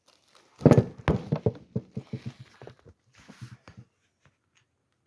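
A loud thump followed by a quick run of knocks and clicks that thin out over about three seconds, with a brief rustle near the end.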